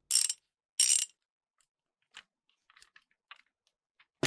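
Plastic toy train and plastic track being handled: two short, loud rattles about two-thirds of a second apart, faint scattered plastic clicks, then a sharp knock near the end.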